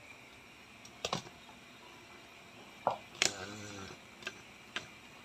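A few light clicks and knocks, irregularly spaced, from kitchen handling, over a faint steady hiss; a brief low pitched sound comes just after the middle.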